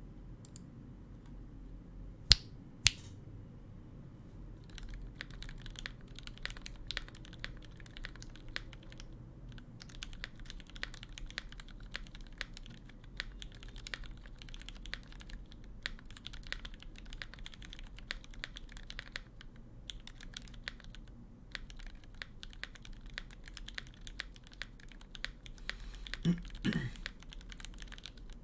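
Typing on a KBDFans D65 mechanical keyboard with lubed Gateron Milky Yellow linear switches, a polycarbonate plate and GMK keycaps: a steady stream of rapid key presses starting about five seconds in, with a few short pauses. Two sharp, loud clicks come a couple of seconds before the typing starts, and a heavier thump sounds near the end.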